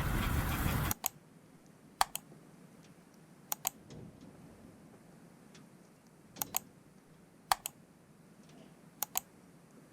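Sharp clicks or taps, mostly in quick pairs, every second or two over a quiet background. A louder rushing sound cuts off suddenly about a second in.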